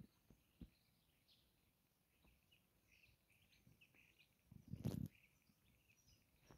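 Faint outdoor ambience with scattered short bird chirps. A few soft low thumps come near the start, and a brief louder low rumble comes about five seconds in.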